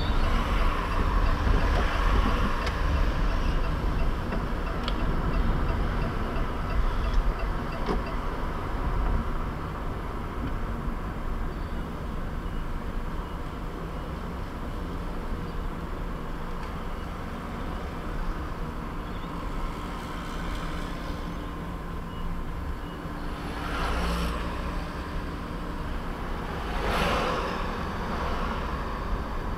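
Steady low rumble of a car driving slowly, heard from inside the cabin, with two short swells of noise near the end.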